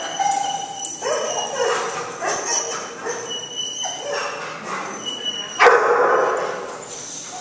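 A dog barking several times, the loudest bark coming about five and a half seconds in.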